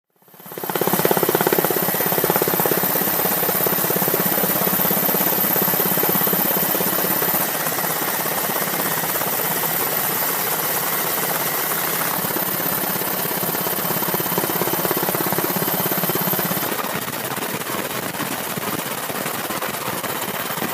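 Steady engine noise with a low hum, running at an even level throughout, with slight shifts in its texture about seven and seventeen seconds in.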